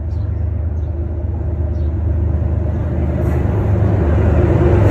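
D19E diesel-electric locomotive approaching, its engine a deep steady drone that grows steadily louder, with a hiss building near the end as it draws close.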